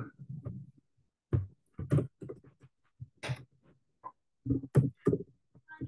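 Computer keyboard typing: about eight separate keystroke clicks with pauses between them.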